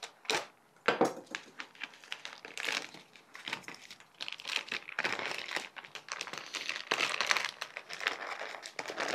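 Plastic vacuum-seal bag being opened and handled: a few sharp crackles in the first second, then denser crinkling from about four seconds in.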